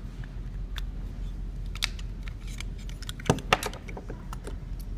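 Light clicks and taps of a battery being handled and seated in a vape box mod's battery compartment: scattered single clicks, with the loudest pair about three and a half seconds in.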